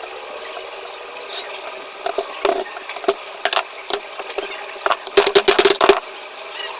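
Metal fan parts and tools clicking and knocking as a ceiling fan is assembled, with a quick run of about ten rapid clicks about five seconds in, over a steady hum.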